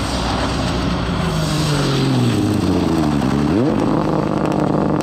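Ford Fiesta R5 rally car engine on a stage: the revs drop as it slows, then jump sharply about three and a half seconds in and hold steady as it passes, with tyre and road noise underneath.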